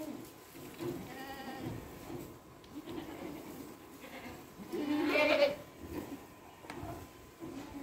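Goats bleating: a fainter bleat about a second in and a louder one about five seconds in.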